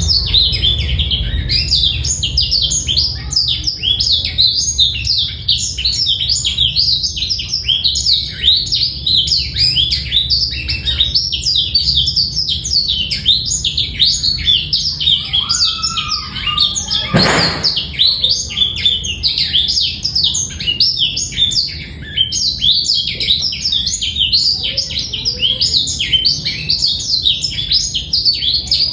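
Blackthroat (black-throated canary) singing a fast, unbroken twittering song of rapid high chirps, with one short click about seventeen seconds in.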